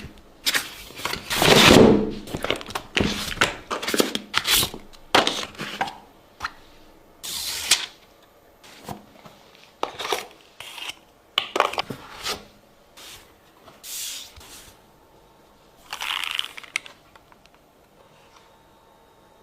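Packaging being handled and opened: rustling, scraping and tearing of box and wrapping, dense for the first few seconds, then scattered shorter rustles with quiet gaps between.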